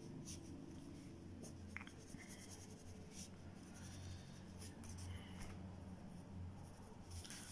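A graphite pencil sketching on paper: faint scratchy strokes, short and irregular, over a low steady hum.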